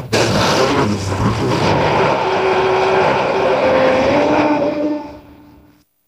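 Custom Giganotosaurus roar sound effect built from layered animal recordings: one long, loud, rough roar with a wavering pitched tone, fading out near the end.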